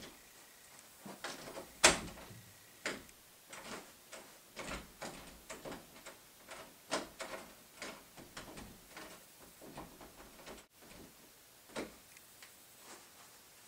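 Irregular knocks, taps and bumps at a wooden interior door, the loudest about two seconds in.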